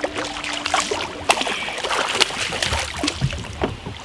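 Irregular knocks, clatter and splashing on a small fishing boat, with a faint steady hum that stops about a second in.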